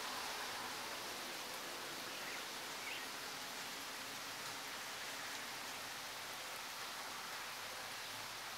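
Steady, even outdoor hiss of a stormy day's ambience, with two faint short chirps about two and three seconds in.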